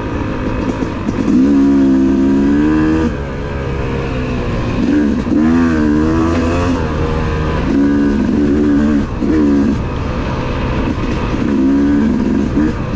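Yamaha YZ250 two-stroke dirt bike engine under way, its pitch rising and dropping several times as the throttle opens and closes.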